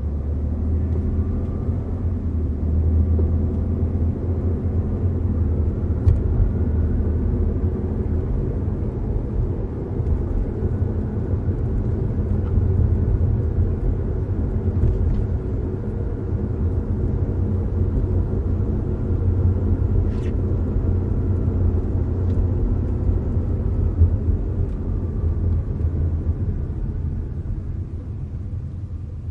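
Audi A4 on the move, heard from inside the cabin: a steady low rumble of engine and road noise, with a few faint clicks and knocks. It eases off slightly near the end.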